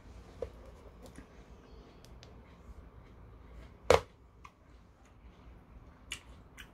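Quiet room with a few faint clicks and one sharp, loud click about four seconds in.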